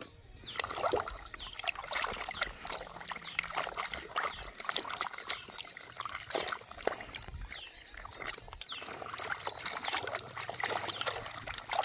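Water splashing and trickling as toy cars are washed, with many quick irregular drips and plops.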